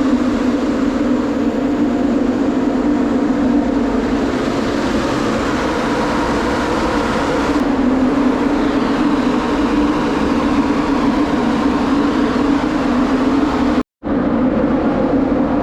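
Two-burner propane grain dryer running: a loud, steady drone of its fans and burners with a strong low hum, broken once by a split-second gap near the end.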